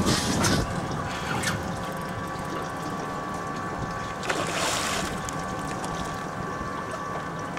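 A hooked striped bass thrashing and splashing at the water's surface, loudest briefly about four seconds in. Under it runs the mechanical ticking of a fishing reel being wound during the fight, over a steady hum from the boat.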